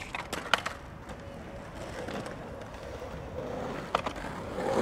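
Skateboard wheels rolling on concrete, the rolling growing louder toward the end, with sharp clacks of the board near the start and again about four seconds in.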